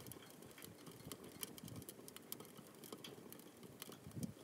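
Firewood crackling faintly in the firebox of a small steel camping wood stove, a scatter of sharp irregular pops and ticks. A low rumble of wind on the microphone comes in near the end.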